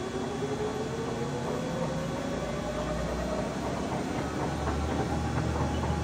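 Main spindle drive of a 2007 Sunfirm CHT 5680 oil-field CNC horizontal lathe running in low gear as the big chuck turns. A whine rises in pitch over the first three seconds or so and then fades, and a steady low hum settles in from a little past halfway.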